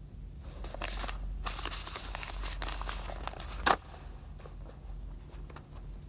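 Rustling and small clicking handling or movement noises, with one sharp knock a little past the middle, then a few scattered light clicks over a low hum.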